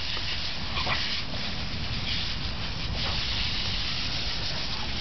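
Garden hose running, its water stream spraying and splashing onto wet asphalt as a steady hiss.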